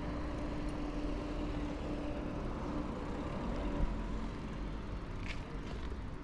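Riding noise from a mountain bike on a cycle path: wind rumble on a chest-mounted action camera's microphone, with tyre and road noise. A nearby motor vehicle's engine hums steadily for the first few seconds, then fades out.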